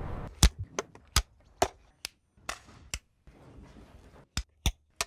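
Film clapperboard snapping shut again and again: about a dozen sharp clacks, unevenly spaced, with near silence between them.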